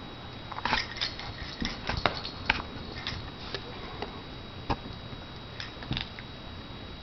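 Plastic baby toy rings being handled and knocked together: irregular light clicks and clacks, a few sharper ones.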